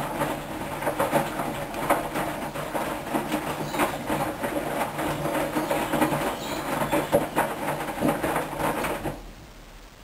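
Hoover washing machine drum turning during the final rinse: a low motor hum with irregular clatter and knocking of the wet load tumbling, stopping suddenly about nine seconds in as the drum pauses.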